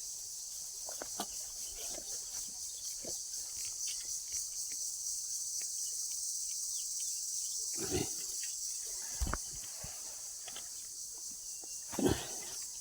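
Steady high-pitched chorus of insects, with a few short knocks, the loudest about eight and twelve seconds in.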